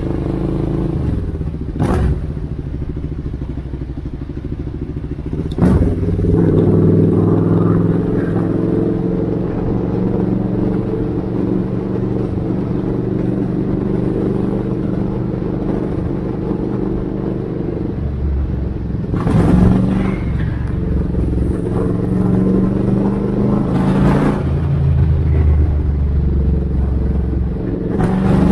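Motorcycle engine running loud through its exhaust, its note shifting up and down several times as it rides. A few short rushing noises cut across it.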